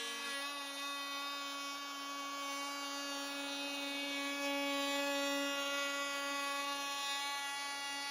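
Hand-held electric router with a round-nose bit running at a steady high whine while cutting a curved recess into wood.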